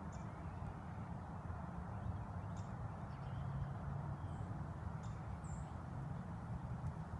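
Outdoor background ambience: a steady low rumble with a few faint, short high chirps scattered through it.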